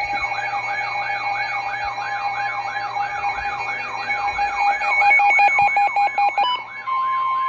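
Emergency alert tones: a warbling siren-like tone sweeping up and down about three times a second, with a burst of rapid screechy data beeps in the middle. About seven seconds in, a steady single-pitch alarm tone starts: the NOAA Weather Radio alert tone that announces a warning.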